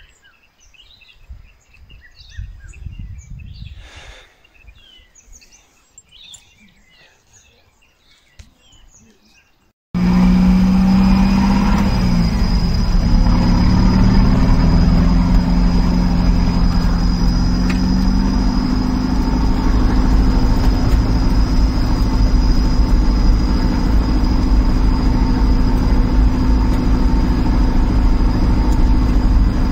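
Birds chirping softly in the open air for about ten seconds, then an abrupt switch to a Mahindra jeep's engine driving on a dirt road, heard loud from inside the cab as a steady drone, its pitch shifting briefly soon after it starts.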